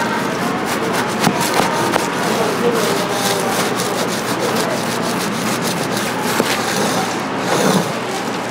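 Continuous scraping and rubbing, with scattered sharp clicks throughout.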